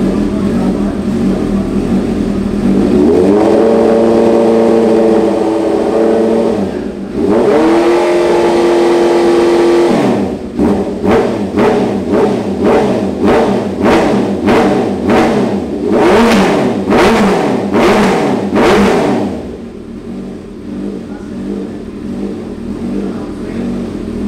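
Honda CB650R inline-four engine running through an Arrow aftermarket exhaust, revved with no load: idling, held at raised revs twice for a few seconds each, then blipped quickly a dozen or so times before settling back to idle.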